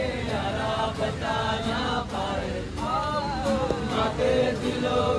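Several people singing a song together in the open, accompanied by acoustic guitars.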